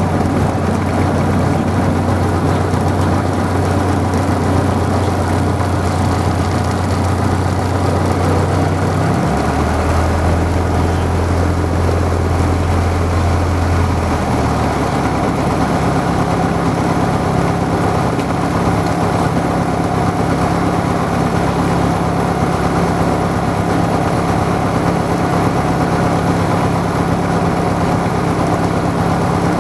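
A light aircraft's piston engine and propeller running at low power as it taxis on the runway. The engine note steps up slightly about a third of the way in, then shifts higher about halfway through and holds steady after that.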